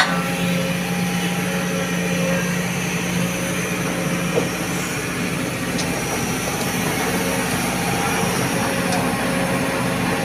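Diesel engine of a Sumitomo hydraulic excavator running steadily at a constant pitch while it swings and dumps soil into a dump truck, with a single short knock about four seconds in.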